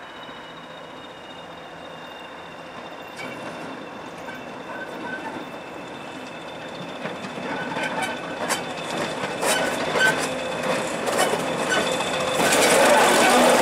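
British Rail Class 20 diesel locomotive approaching and passing close by, getting steadily louder, with a steady high-pitched whine. From about halfway through, its wheels click irregularly over rail joints and points, and the sound is loudest near the end as it draws level.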